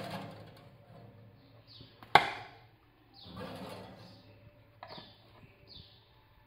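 Metal loaf tins scraping and knocking on an oven's wire rack as they are lifted out and set down, with one sharp metallic clank about two seconds in, the loudest sound, and a few lighter knocks near the end.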